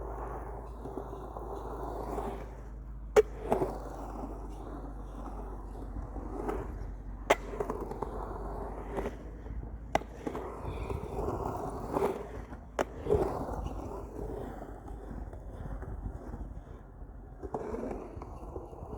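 Skateboard wheels rolling with a steady rumble, broken four times by sharp clacks of the board, the first the loudest.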